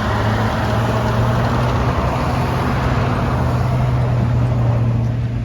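A heavy military vehicle's engine running steadily close by: a deep, even drone over a broad rushing noise.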